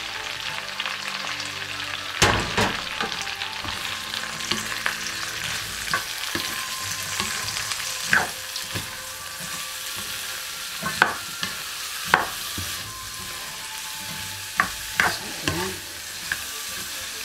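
Onions, garlic and celery sizzling in hot oil in a pan while being stirred, with a steady hiss and several sharp knocks against the pan.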